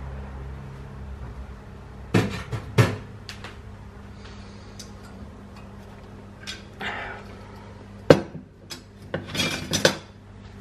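Kitchen clatter: sharp knocks and clinks of dishes and utensils being handled and set down, in a cluster about two seconds in and a busier one from about eight seconds in, over a steady low hum.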